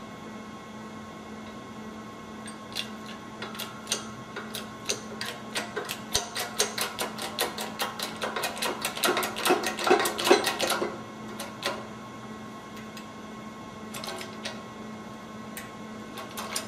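Hand-pumped hydraulic bottle-jack shop press at work: a run of quick metallic clicks and knocks, densest and loudest about six to eleven seconds in, with a few more near the end, as a heated gear is pressed onto its shaft.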